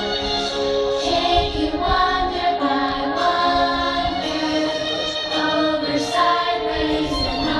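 Show soundtrack music with a choir singing sustained, shifting chords, and scattered low thuds underneath.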